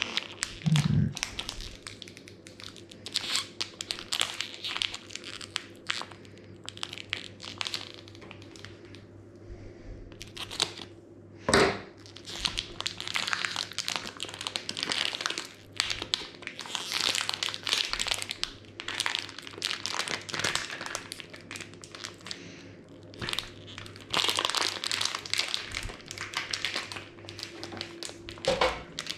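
Crinkling and crumpling of wrapping being handled, in bursts with short pauses, over a faint steady hum. A sharp knock comes about twelve seconds in.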